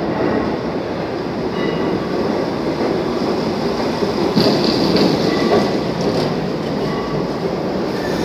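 New York City subway train pulling into an underground station and running along the platform: a steady loud rumble of steel wheels on rail with clicking over the rail joints, and a brief high screech about halfway through.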